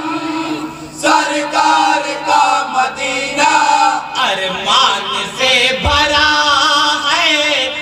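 Group of men chanting an Urdu naat in praise of the Prophet together, their voices amplified through microphones.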